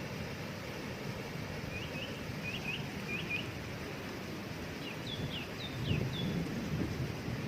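Steady rushing of a waterfall, with a small bird singing over it in two short runs of quick, high, hooked chirps, the first about two seconds in and the second near the end.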